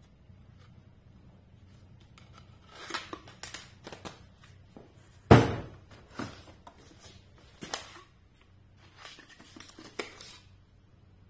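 Accessories being handled in a hard plastic tool case: rustling and scraping, then a sharp knock about five seconds in, the loudest sound, followed by a few lighter knocks and clicks.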